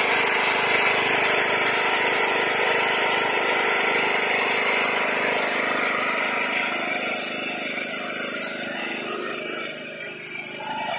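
Small 2 kW portable generator's engine running at a steady speed, the generator producing electrical output again after its no-output fault was repaired. The sound is briefly quieter near the end.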